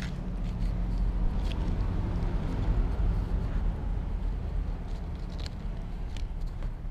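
A cat eating cooked rice from a plastic tub right at the microphone: a few faint clicks of chewing and licking over a steady low rumble.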